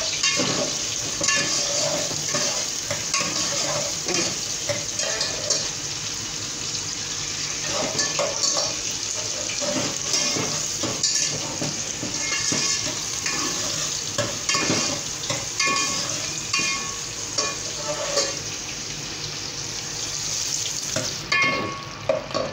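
Sliced onion frying in hot oil in a stainless steel pot, sizzling steadily while it browns, with a steel ladle stirring and scraping against the pot in many short clinks.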